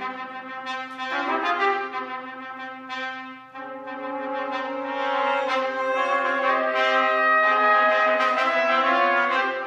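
Trumpet ensemble of six trumpets playing together in harmony: a run of changing chords, a brief drop in level about three and a half seconds in, then a long held chord that grows louder and stays full.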